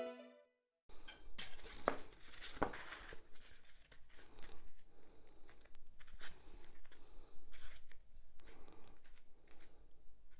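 Pieces of Styrodur extruded polystyrene foam being handled and pressed together by hand: scratchy rubbing of foam on foam with light knocks and ticks, the strongest knocks about two seconds in.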